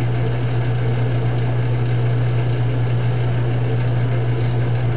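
A metal lathe running at a steady speed, its motor giving a constant low hum, while the spinning workpiece is polished with Brasso on a rag.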